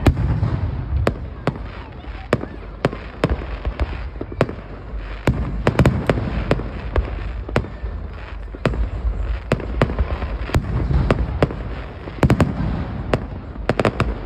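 Aerial fireworks going off, with many sharp bangs in quick, irregular succession over a continuous low rumble.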